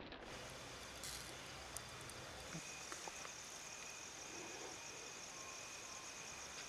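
Faint, steady high trilling of night insects such as crickets, with a few faint ticks.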